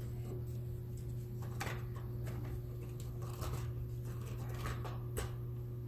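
A few faint clicks and taps from a laptop motherboard being handled and lifted in its plastic chassis, over a steady low hum.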